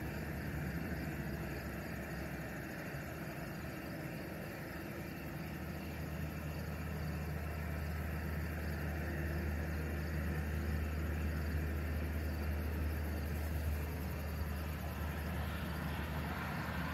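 Outdoor evening background noise with a low rumble that swells about five seconds in and holds for several seconds before easing.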